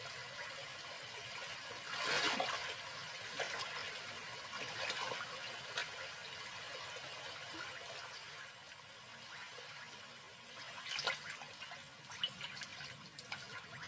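Lions wading and swimming across a river channel: water sloshing and splashing around them, with louder splashes about two seconds in and again near the end.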